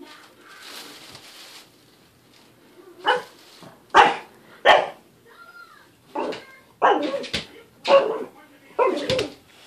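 Pug barking in short, sharp single barks, about seven of them from about three seconds in, after a soft rustle at the start.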